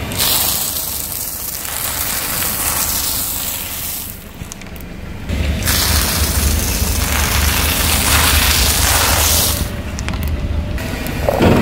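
Car tyre rolling over a row of brittle painted discs and crushing them, a long crackling crunch in two stretches with a lull about four seconds in, and a sharper crack near the end.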